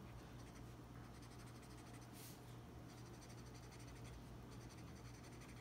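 Faint scratching of a Crayola washable marker's felt tip rubbed back and forth on sketchbook paper as it colors in.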